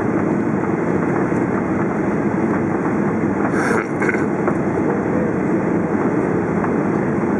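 Steady cabin roar of a Boeing 737 airliner on final approach with flaps extended, engine and airflow noise heard from a window seat inside the cabin. A brief scraping noise a little before halfway through.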